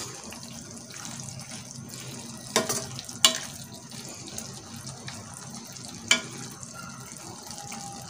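Okra and masala sizzling in oil in an aluminium pan while a metal spoon stirs them, scraping through the pan, with three sharp clinks of the spoon against the pan about a third of the way in, again soon after, and past the middle.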